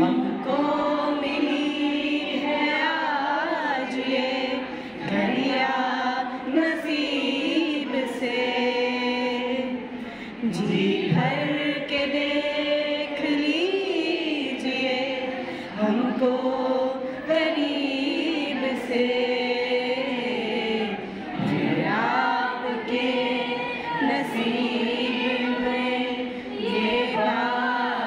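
A song sung by a group of voices together, in long held phrases with short breaks between them.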